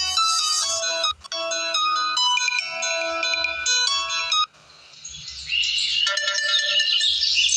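Tecno Spark 6 alarm tones previewing through the phone's speaker: a melodic electronic ringtone tune that breaks off briefly about a second in and stops about four and a half seconds in, then after a short gap a different tone with high chirping notes begins.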